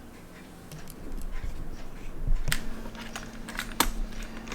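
Scattered light clicks and taps of small tools handling a watch movement as its oscillating weight is pushed round by hand to wind the mainspring. A faint steady hum comes in about two and a half seconds in.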